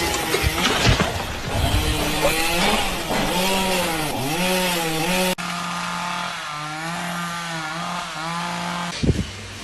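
Engine running and revving, its pitch dipping and rising again and again. The sound changes abruptly about five seconds in to a steadier, quieter running tone that still wavers.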